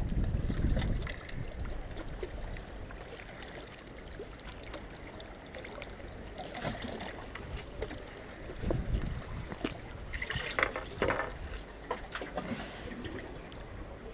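Sea water lapping against the rocks of a breakwater. Wind buffets the microphone in the first second. Scattered clicks and rustling of handling come in around the middle and again about ten seconds in.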